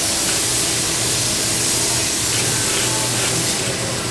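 Horizontal band saw running with its blade starting to cut into structural steel at a slow feed, under a flow of coolant: a steady hiss over a low hum.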